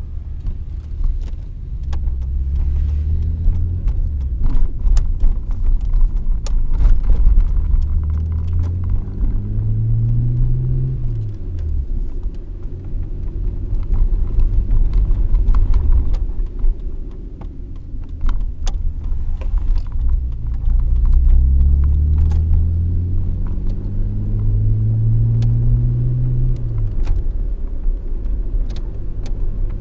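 Car engine and road rumble heard from inside the cabin while driving, the engine pitch climbing steadily twice as the car accelerates and falling away quickly each time, about a third of the way in and near the end. Light rattling clicks are scattered throughout.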